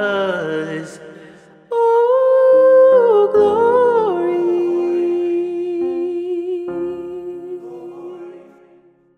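Man's solo voice singing a wordless run over soft keyboard chords. A loud phrase enters about two seconds in, bends through a melismatic run, then settles into one long held note that fades out near the end.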